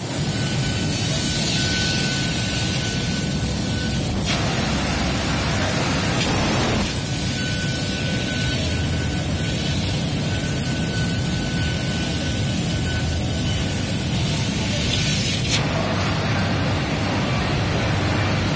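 Laser tube cutting machine cutting a metal tube: a loud, steady machine noise with a high hiss from the cutting head and a faint thin whine that comes and goes. The sound turns broader and noisier from about four to seven seconds in, and the high hiss stops about fifteen seconds in.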